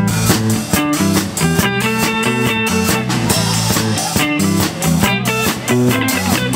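Rock band playing an instrumental passage without vocals: guitar over bass and drums with a steady beat.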